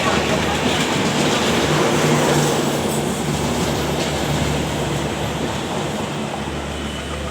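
Kolkata–Dhaka express train running through the station at speed without stopping, its coaches' wheels and rails making a loud, steady rush that eases gradually over the last few seconds.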